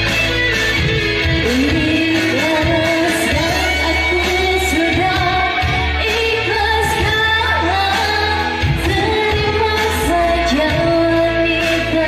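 A singer performing live over electone keyboard backing, the voice sliding and wavering in pitch above a steady bass beat.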